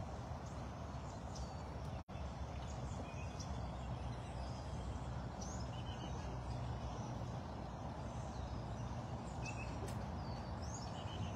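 Outdoor ambience: a steady low background rumble with faint, scattered chirps of small birds. The sound cuts out for an instant about two seconds in.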